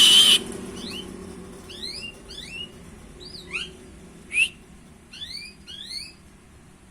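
Songbird chirping: a loud, shrill note right at the start, then a series of short, sharp whistled chirps, several coming in quick pairs and triplets, stopping about a second before the end.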